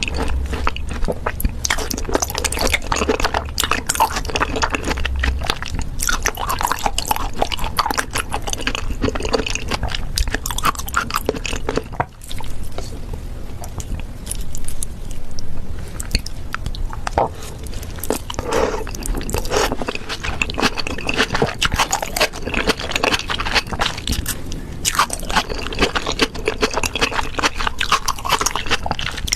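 Close-miked ASMR eating: continuous wet chewing, biting and crunching of food, with a short pause about twelve seconds in.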